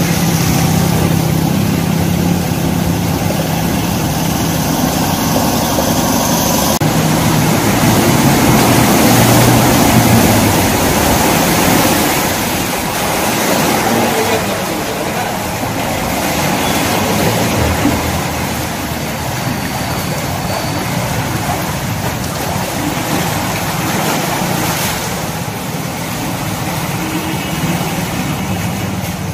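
Motor vehicles driving through deep floodwater: motorcycle and car engines running with a continuous splashing and sloshing of water. A steady engine hum stands out for roughly the first seven seconds.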